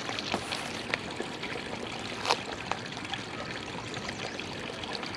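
Steady trickling of running water, with a few faint clicks; the loudest click comes a little over two seconds in.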